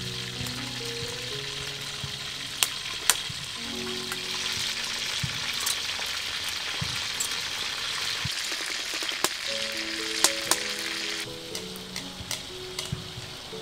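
Fish sizzling as it cooks over the fire, a steady hiss broken by a few sharp clicks of a utensil, over soft background music. The sizzle drops away about eleven seconds in.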